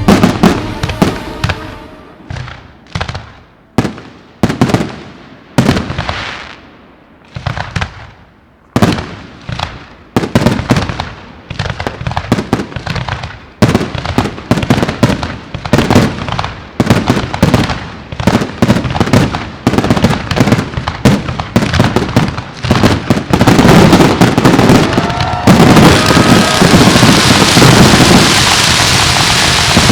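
Fireworks display: a run of loud aerial-shell booms, each with a fading echo, coming faster and faster into a dense barrage. From about 25 seconds in, it turns into a continuous crackling finale.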